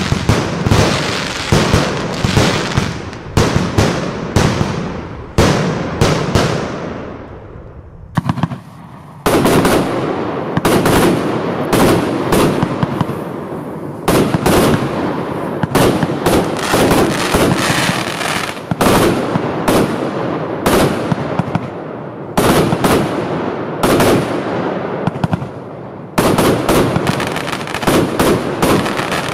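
Compound firework batteries firing in a rapid sequence of loud bangs, each fading out behind it. There is a brief lull with a quick run of small pops about eight seconds in, then the salvos resume.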